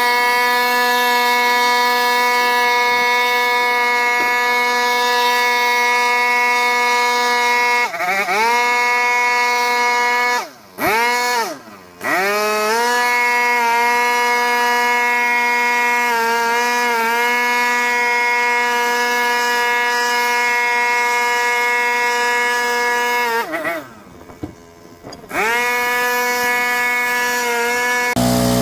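Small engine held at high revs with a steady high-pitched whine. Three times it drops away and winds back up to full throttle.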